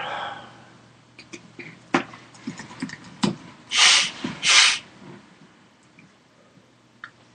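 Two short, loud breathy puffs close to the microphone, a bit under a second apart, from the person recording. Small mouth clicks come before them.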